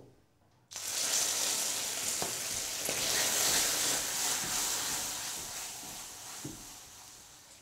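Port wine hitting hot golden caramel in a frying pan, sizzling and steaming as it boils up. The sizzle starts suddenly just under a second in and slowly dies away toward the end.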